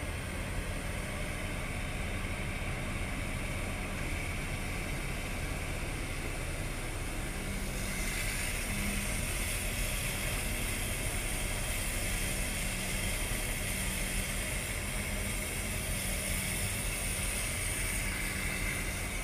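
Heavy construction machinery running steadily: the diesel engines of a tracked excavator and a road roller, with a low, even drone. A higher hiss joins about eight seconds in.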